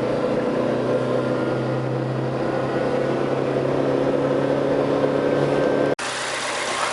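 Chevrolet Corsa 1.0 engine running steadily on the road, heard from inside the cabin as an even drone with road noise. It cuts off abruptly about six seconds in to a different steady engine sound.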